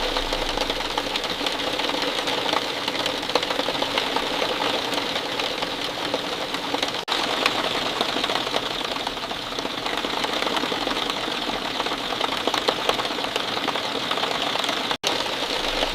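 Steady rainfall, a dense patter of many small drops, with a momentary break about seven seconds in.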